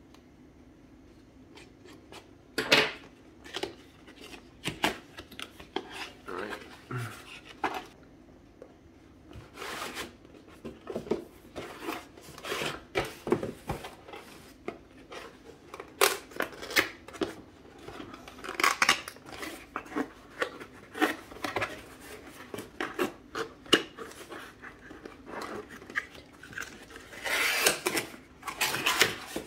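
A cardboard box being handled and opened by hand: irregular scraping, sliding and knocking of cardboard flaps and packaging, loudest a little before the end.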